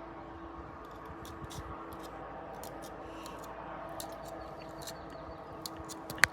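Indian ringneck parrot making scattered small clicks and taps, with one short, sharp chirp rising in pitch near the end, over a steady low hum.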